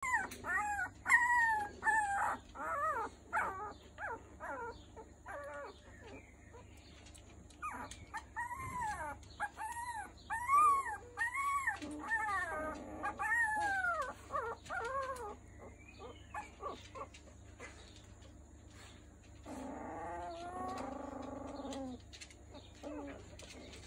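Three-week-old Miniature Schnauzer puppies whining and squealing: a quick run of short, high cries that rise and fall in pitch, thinning out after about fifteen seconds, with a lower, rougher whine near the end.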